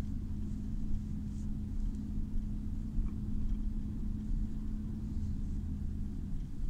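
Car driving slowly, heard from inside the cabin: a steady low rumble of engine and tyres, with a steady hum that fades out about six seconds in.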